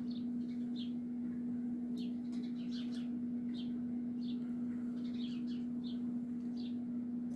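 Small birds chirping in short, quick calls scattered throughout, over a steady low hum.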